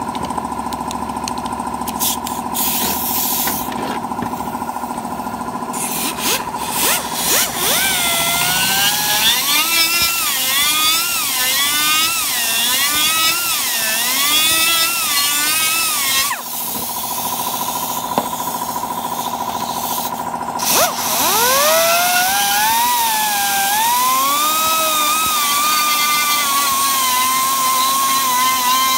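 Small electric power tool working a cracked plastic motorcycle side cover, its pitch dipping and recovering again and again as it is pressed into the plastic. It stops about 16 s in and spins back up, rising in pitch, about 21 s in, over a steady high whine.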